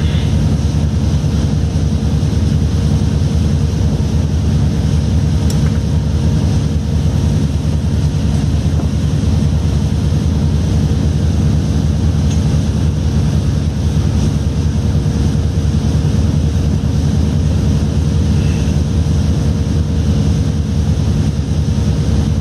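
Steady low drone of a fishing trawler's engines and deck machinery running.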